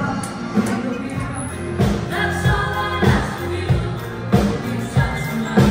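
Pop song with a singing voice over a steady beat of about two beats every second and a bit.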